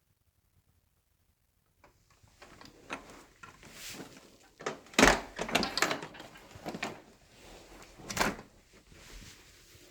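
Irregular plastic clicks, knocks and rattles of the Sharp upright vacuum being handled, its parts taken off or snapped into place, starting about two seconds in, with two louder clunks in the middle and near the end. The motor is not running.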